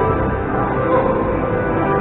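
Background music of sustained, held chords.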